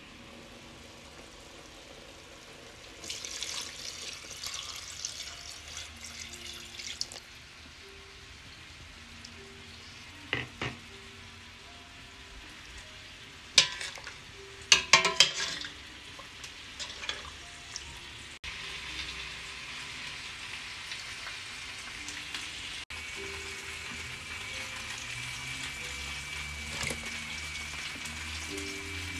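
Water poured from a bowl into a stainless-steel pot of chicken splashes for a few seconds. A metal spoon then clinks and scrapes against the pot as the contents are stirred. Later comes a steady hiss of the broth heating, with soft background music throughout.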